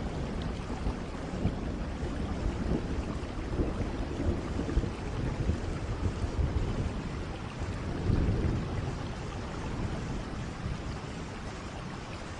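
Steady heavy rain with low rolling rumbles of thunder; the loudest rumble swells up about two-thirds of the way through.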